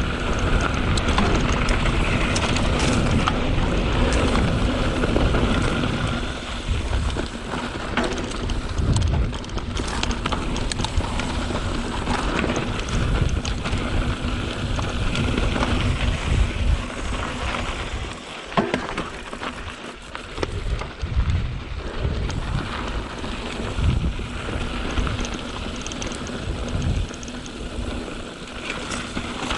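Wind rushing over the microphone as a mountain bike rolls down a loose dirt trail, with scattered knocks and rattles from the tyres and bike over rocks. The rush is heaviest for the first several seconds, then comes and goes.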